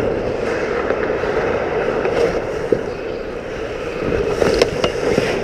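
Ice hockey play close to the goal: skate blades scraping across the ice, with a few sharp clacks of stick and puck about four seconds in as the puck comes in on the goalie.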